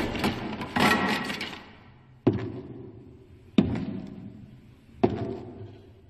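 Four heavy thuds of blows land about a second and a half apart, each sudden and then dying away slowly.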